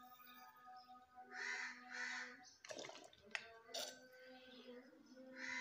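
A bird calling in two pairs of short calls, one pair about a second and a half in and another near the end, over a faint steady hum, with a couple of clicks in the middle.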